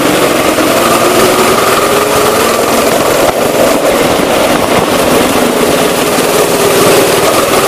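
Go-kart's small petrol engine running at speed, heard from the driver's seat, loud and continuous, its pitch rising and falling a little as the kart is driven through the corners.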